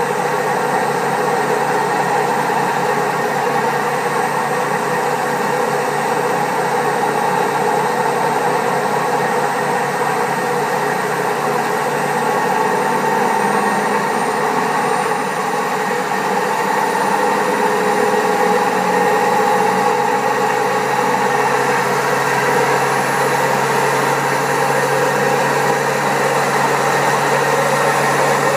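Servis Caress 1300 washing machine spinning at high speed, a loud steady mechanical drone with the noise of very bad drum bearings; a low hum grows a little stronger about halfway through.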